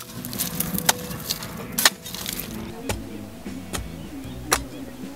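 Mattock blade striking dry, stony soil about once a second, each blow a sharp, short impact.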